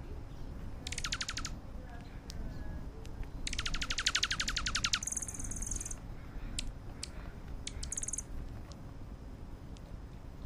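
Small birds calling at close range: a short rapid trill, then a longer one of about a second and a half, followed by high buzzy notes, with a few sharp clicks. A low rumble runs underneath.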